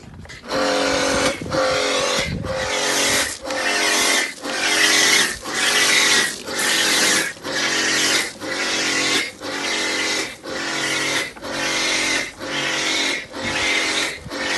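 Pressure washer spraying snow foam through a foam lance. The pump's hum and the hiss of the spray rise and fall in even pulses, about five every four seconds, starting about half a second in.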